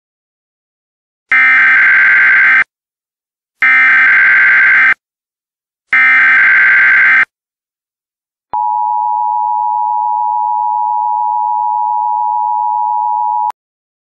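Emergency Alert System alert tones. Three identical bursts of buzzing digital data, the SAME header, each about a second and a half long with a short gap between them. Then the steady EAS attention signal tone holds for about five seconds and cuts off sharply.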